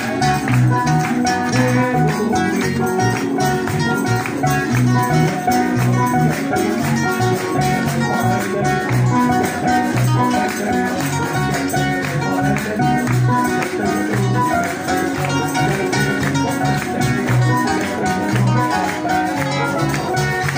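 Live Latin-style praise music from an amplified band, electric guitars and bass over a steady, even beat, with a man singing into a microphone through the loudspeakers.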